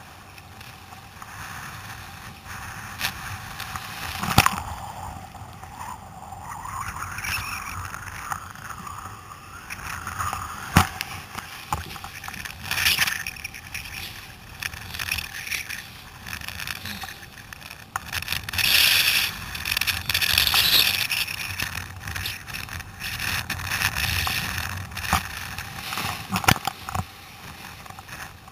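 Breaking surf and whitewater rushing and splashing around a sit-on-top kayak being paddled out through the waves, swelling into loud surges about halfway through and again about two-thirds of the way in. A few sharp knocks stand out now and then.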